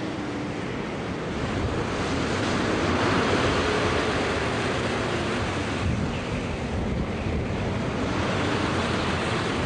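Stormy sea: heavy waves surging and wind blowing hard, with a faint wavering howl of wind.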